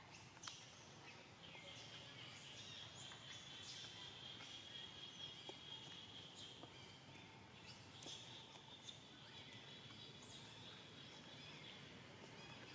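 Faint outdoor ambience: a steady high-pitched drone, broken briefly about halfway through, with scattered short high chirps.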